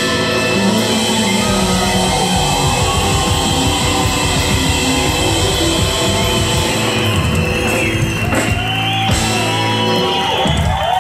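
Live band playing Brazilian popular music with drums, bass, electric guitar and keyboard as the final song closes. The low end of the band drops out about ten seconds in and the crowd starts cheering.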